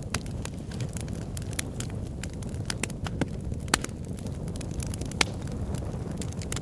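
Continuous crackling: irregular sharp clicks and pops over a steady low rumble.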